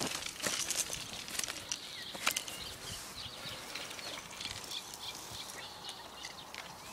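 A freshly landed carp flapping and splashing in a landing net: irregular slaps and rustles, with birds chirping faintly.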